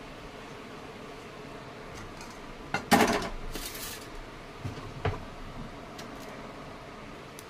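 Stainless steel kitchenware clattering: one loud metallic clatter about three seconds in, a short rattle right after, then a couple of light knocks, over a steady background hiss.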